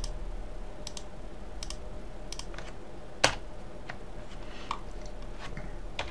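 Computer mouse and keyboard clicks, single or in quick pairs, coming about once a second, with one louder sharp click about three seconds in. A steady low hum runs underneath.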